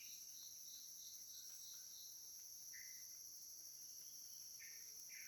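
Steady, high-pitched chorus of jungle insects, with a quick run of short repeated notes in the first second and a few brief bird-like chirps later on.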